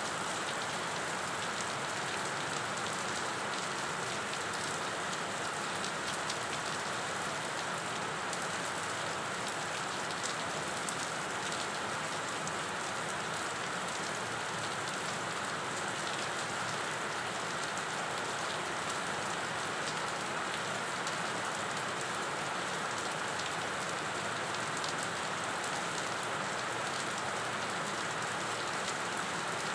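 Steady rain falling on a lane covered in standing water and on roadside plants: an even hiss with fine scattered drop splashes throughout.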